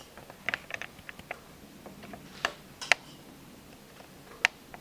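Light clicks and taps of kitchen utensils and a blender jar being handled: a quick cluster of small clicks about half a second in, two sharper clicks in the middle and one more near the end.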